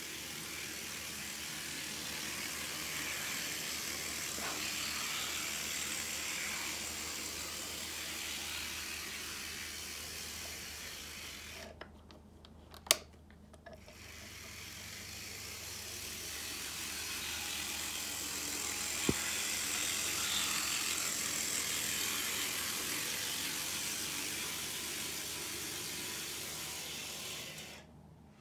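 Bare chassis of an old Endo DD13 1/80-scale model locomotive, its motor driving the wheels through a spring belt, running along the track with a steady whir that grows louder and fainter as it moves. The whir stops for a couple of seconds near the middle, broken by one sharp click, then starts again.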